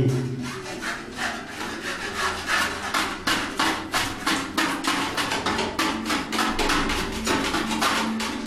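Hand scrapers scraping a flaking wall and ceiling, quick repeated strokes at about three to four a second from two people working at once.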